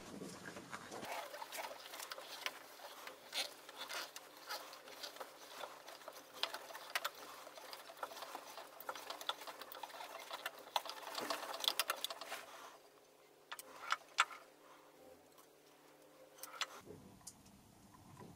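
Faint, irregular light mechanical clicking and ticking from the milling machine as its X feed is moved, with a dial indicator riding on the machined face. The clicks thin out to a few scattered ticks after about 13 seconds.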